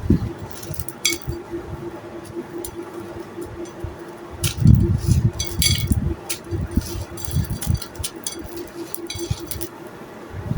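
Dry, brittle clay chunks crumbling and snapping, a run of sharp crisp cracks and clinks mixed with soft low thuds, busiest around the middle. A faint steady hum runs underneath.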